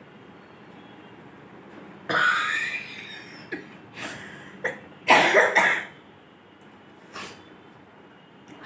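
A woman sneezing and coughing, set off by long grass tickling inside her nose. There is one strong burst about two seconds in and a louder cluster of bursts around five seconds, with a few short smaller ones in between and near the end.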